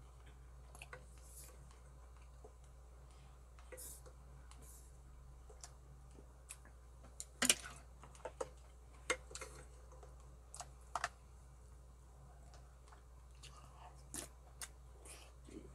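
Eating sounds: scattered clicks and taps of chopsticks and a wooden spoon against a stainless steel pot and a plastic rice container, with some chewing. The sharpest clack comes about halfway through.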